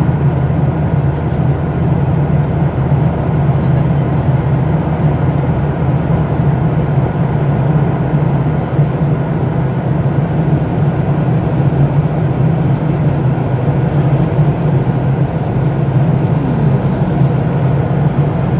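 Steady cabin noise of a passenger airplane in flight: a constant low engine hum with an even rush of air over it, heard from inside the cabin at a window seat.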